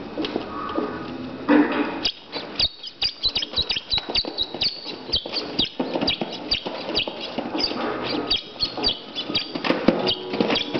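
Two Italian greyhound puppies at play: a quick run of clicks and scuffles with many short high squeaks, several a second.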